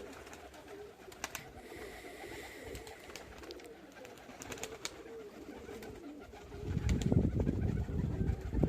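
Domestic pigeons cooing close by, with scattered light clicks. Late on, a much louder, dense low rustling sound comes in and continues.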